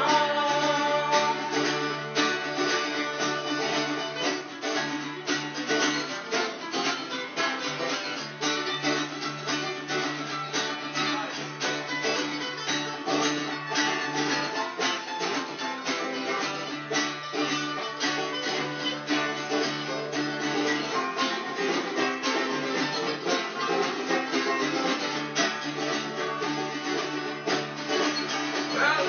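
Instrumental music: a guitar picked or strummed in a steady, even rhythm, with no singing.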